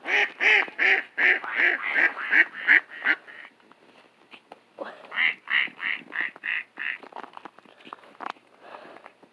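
Mallards quacking in two rapid runs of short, evenly spaced quacks, about three to four a second, with a pause of a second or so between the runs.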